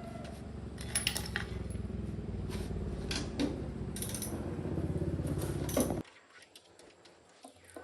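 A motor-driven machine running steadily, with sharp metallic clinks and knocks over it; it cuts off abruptly about six seconds in, leaving a few faint ticks.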